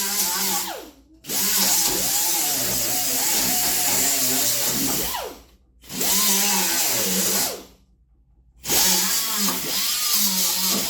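Angle grinder with a sanding disc working the steel of a lawnmower deck, run in bursts that stop sharply three times and start again. Its pitch wavers as the disc is pressed on and eased off.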